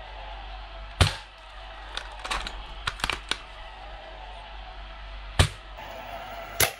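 Air gun shots fired at a moving target: one sharp crack about a second in and another about five seconds in, with fainter clicks in between and a further crack near the end.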